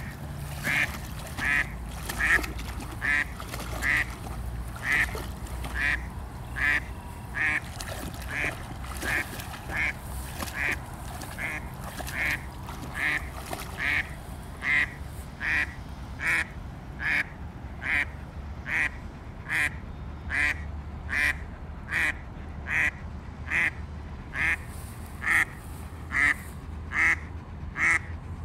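A duck quacking over and over in a steady, regular series, about two quacks a second, upset by a dog standing in the water near it.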